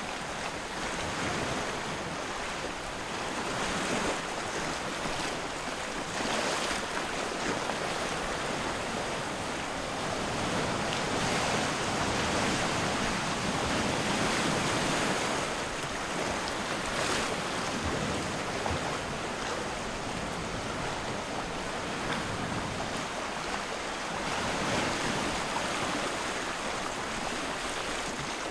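Wind rushing past the microphone, a steady hiss that swells and eases every few seconds.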